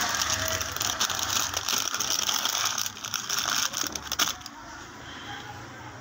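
Plastic instant-noodle packets crinkling and rustling as they are handled and stacked on a shelf, a dense run of crackles and small clicks that dies down about two-thirds of the way through.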